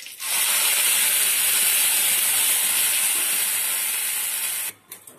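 Wet ground masala paste of onion, tomato, green chilli, garlic and ginger hitting hot oil in a steel kadai, setting off a loud sizzling hiss. It starts suddenly, eases slightly, and cuts off abruptly near the end.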